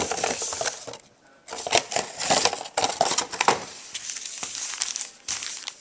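Trading card packs and packaging being handled: wrappers crinkling and crackling with many sharp clicks, with a short pause about a second in.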